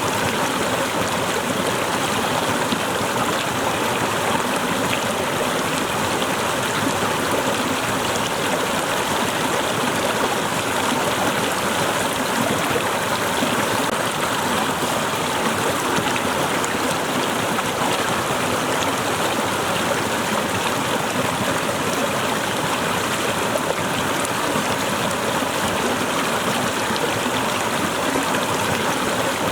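Waterfall, water cascading and splashing in a steady, unbroken rush.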